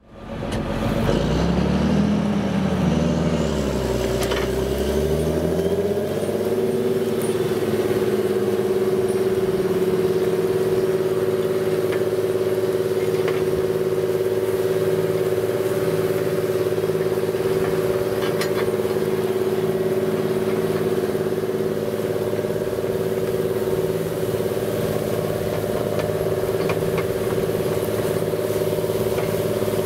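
John Deere 8430 tractor's diesel engine running while pulling a Horsch Tiger cultivator. Its pitch rises and falls for the first six seconds or so, then holds a steady drone.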